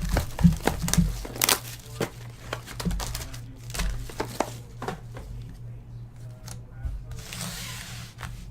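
Baseball card packaging being handled and opened: rustling and crinkling with light clicks, and a longer burst of crinkling about seven and a half seconds in.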